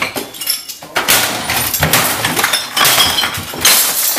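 Objects being flung and knocked over in a room: glass bottles clinking and clattering, with repeated crashes and bangs.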